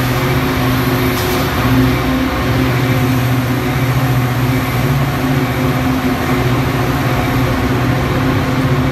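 Metra diesel locomotive running under power as it pulls a train of bilevel commuter coaches out along the platform: a loud, steady low engine drone with the rumble of the cars rolling by.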